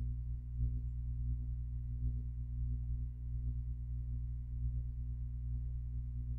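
Steady low electrical hum with several evenly spaced overtones, unchanging throughout: background hum on the narration's microphone line.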